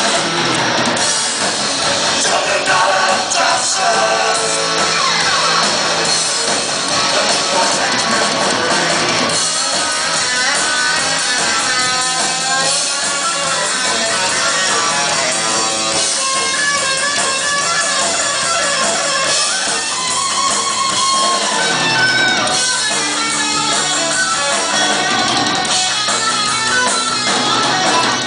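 Loud rock music with electric guitar and a drum kit, which stops abruptly at the end.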